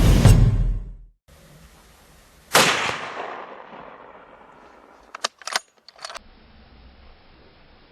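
A single rifle shot about two and a half seconds in, its echo rolling away over a couple of seconds. A few short sharp clicks follow around five to six seconds in. Background music fades out in the first second.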